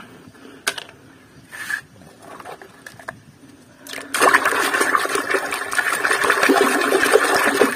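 Water sloshing and splashing in a basin as a hand scrubs a small plastic toy truck under muddy water. The first part is quieter, with a few faint clicks of the toy being handled; about four seconds in, the splashing turns loud and continuous.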